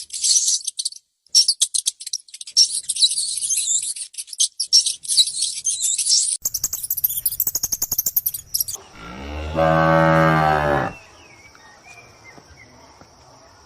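Small birds chirping busily for about six seconds, then a rapid high-pitched buzzing. A cow then moos once, loudly, for about two seconds. A cricket's faint steady chirping follows.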